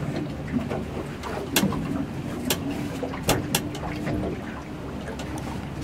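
On an open fishing boat, a low steady hum of an outboard motor running under wind and water noise, with several sharp clicks and knocks from handling gear on the boat.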